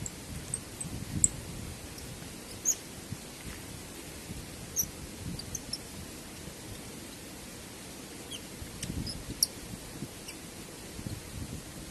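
Steady rush of a waterfall with low gusts of wind swelling in and out, and scattered short, high bird chirps.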